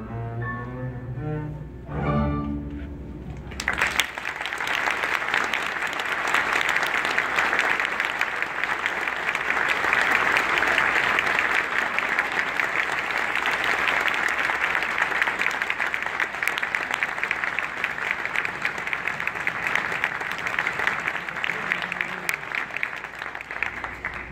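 Double bass with string orchestra sounding the closing notes of the piece, then, about four seconds in, an audience applauding steadily for some twenty seconds, dying down at the very end.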